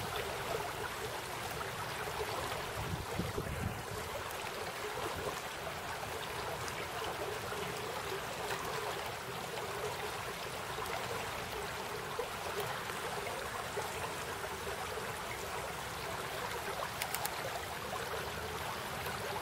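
Small brook in flood, silt-laden water running steadily and shallowly over sand and gravel banks.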